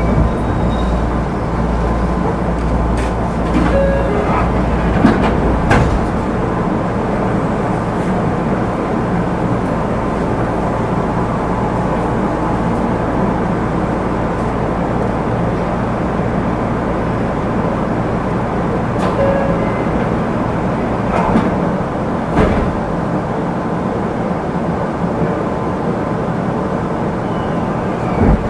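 Tokyu 9000 series commuter train running between stations, heard from on board: a steady rumble of wheels on rail with scattered sharp clicks. A low hum drops away about six seconds in.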